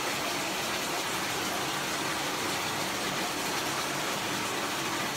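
Steady, even rushing noise of running water.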